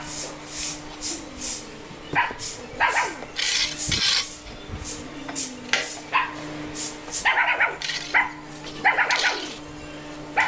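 A dog barking and yipping repeatedly in short, high-pitched bursts, some single and some in quick pairs. Scratchy rustling strokes and a steady low hum run underneath.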